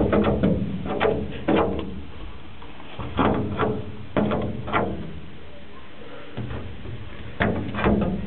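Prairie dog pawing and scratching at a glass pane: short scraping knocks in quick pairs and runs, in three clusters with a pause of about two seconds in the middle.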